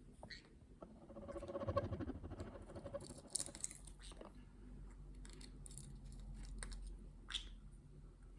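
Walnut shells crackling and being picked apart on a table as a green cheek conure eats, with a short buzzing rasp about a second in, the loudest sound, and sharp crackles around three seconds in. Scattered small clicks follow.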